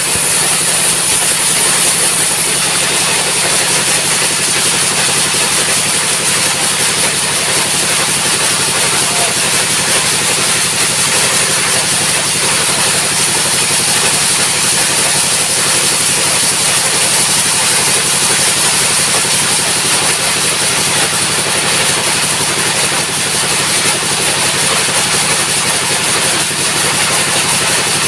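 A sawmill's engine running loud and steady, with no change in speed.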